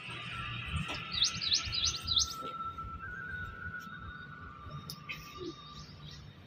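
A bird chirping, a quick run of four sweeping high notes about a second in, over a thin steady high tone that stops near the end.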